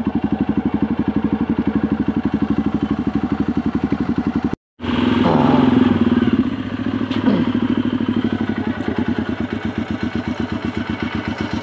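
Small engine running steadily with an even, fast pulse, cutting out briefly a little before halfway.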